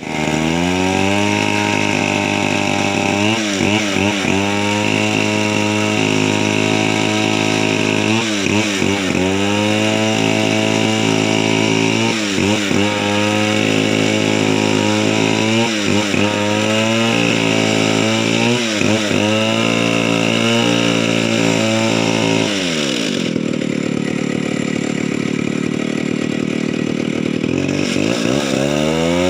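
Petrol chainsaw running at high revs, its pitch dipping briefly about every four seconds. From about 23 s to 28 s its note turns lower and rougher, then it climbs back.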